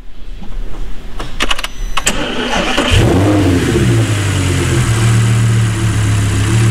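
Audi R8 V10 engine being started: a few clicks, a brief crank of the starter, then the engine catches about three seconds in, flares its revs and settles into a steady idle. It idles with no misfire, the cylinder 8 misfire cured by a replacement ECU.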